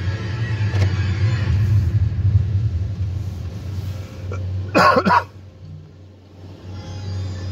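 Car engine idling with a steady low rumble, heard from inside the cabin. About five seconds in, a short loud cough-like vocal sound stands out, and the rumble briefly falls off after it.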